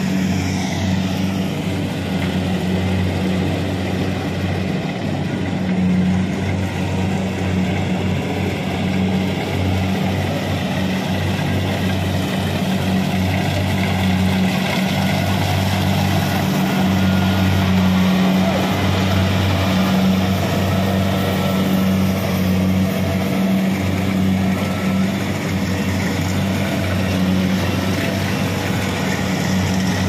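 Kubota DC-70 rice combine harvester running steadily as it cuts and threshes rice, its diesel engine and machinery making a constant low drone.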